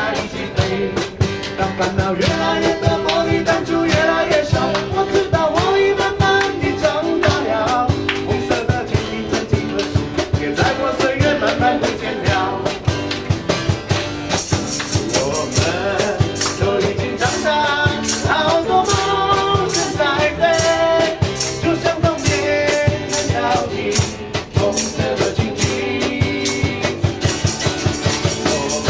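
Live band: a man sings into a microphone over a strummed acoustic guitar and electric bass. From about halfway in, listeners clap along in time.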